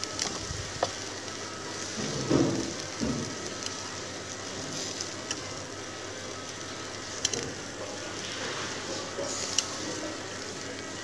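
Chicken pieces and whole eggplants sizzling on a wire grill over charcoal: a steady hiss with scattered sharp crackles and pops, and a brief muffled rumble about two seconds in.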